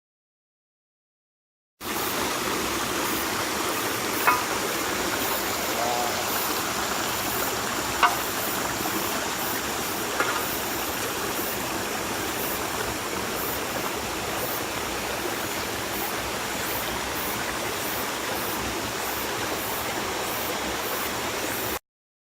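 Steady rushing of a rain-swollen river in flood, starting after a silent cut and ending abruptly. Three brief sharp sounds stand out over it in the first half.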